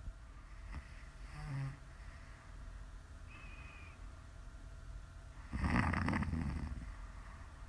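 A woman snoring in her sleep: a short soft snore about a second and a half in, then one loud snore about five and a half seconds in lasting about a second.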